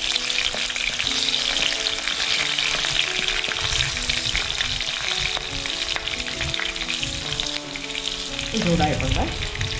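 Split green chillies, a bay leaf and whole spices sizzling and crackling in hot coconut oil in a non-stick kadai while a spatula stirs them. The sizzle is a steady hiss dotted with quick pops.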